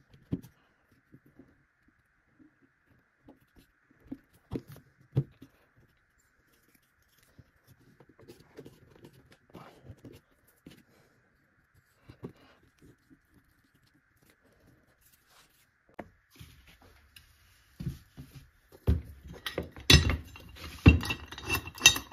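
Wooden sticks being handled and fitted into drilled holes in a wooden block: scattered light knocks and clicks, then a louder, denser run of knocks and clatter from about nineteen seconds in.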